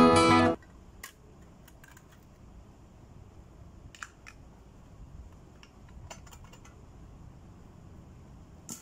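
Acoustic guitar music cuts off about half a second in. After it come faint, scattered clicks and light metallic taps as a tin can is turned and handled with a small hand can opener.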